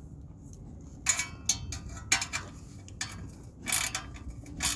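A hand wrench clicking in short metallic bursts, about six of them at uneven intervals, as the clamp screws of a clip-on exhaust tip are tightened onto the tailpipe.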